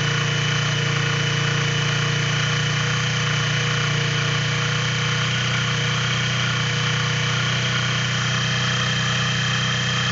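Keeway Cafe Racer 152's single-cylinder engine idling steadily with a rapid, even mechanical knocking: the engine noise whose cause is being sought.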